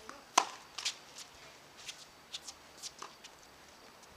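A tennis ball struck by a racket, a sharp pop about half a second in, followed by a scattering of lighter clicks from balls bouncing and shoes on the hard court.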